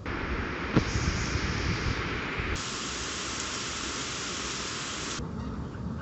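Caspian Sea surf washing ashore, a steady hiss of waves that changes abruptly about two and a half seconds in and cuts off about five seconds in. A single short knock sounds near the start.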